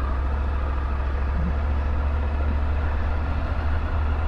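Triumph Tiger 900 GT motorcycle's three-cylinder engine running steadily at low revs as the bike is ridden gently and quietly at low speed.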